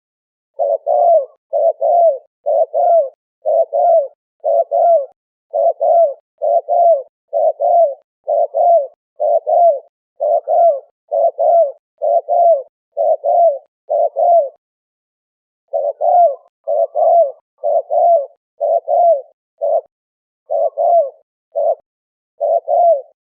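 Spotted dove (terkukur, spotted turtle dove) cooing: a long run of short, mellow coos, mostly in pairs, repeated about once a second, with one brief pause partway through.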